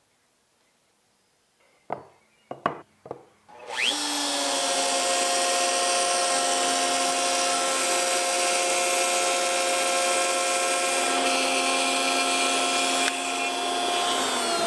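A few brief knocks, then about four seconds in a DeWalt router on an X-Carve CNC machine spins up and runs with a steady whine while cutting out a shape from quarter-inch acrylic sheet.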